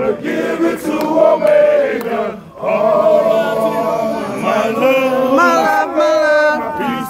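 A group of men singing together in a loud, chant-like fraternity song, several voices holding long notes, with a brief break about two and a half seconds in.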